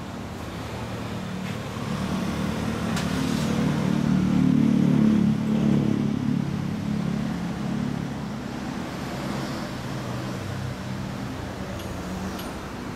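A vehicle's engine and exhaust passing close by: the low engine note grows louder to a peak about four to five seconds in, then fades back to a steady running sound.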